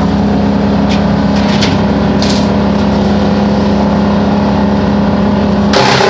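Vermeer BC1000 brush chipper running steadily at working speed, with a few brief clicks in the first half. Near the end a sudden loud rush of noise sets in and the engine note drops as the chipper takes a load and starts chipping wood.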